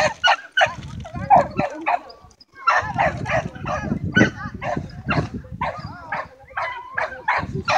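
Small dog barking rapidly and repeatedly, a few short barks a second, while running an agility course. The barking pauses briefly about two and a half seconds in.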